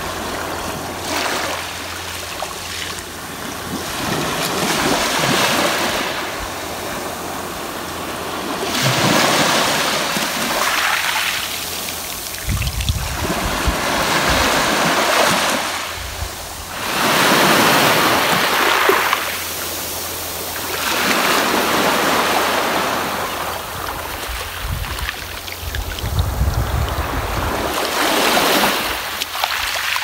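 Small sea waves washing up over a sand-and-pebble beach and drawing back, each surge swelling and fading every three to four seconds. A brief low rumble comes twice, around the middle and near the end.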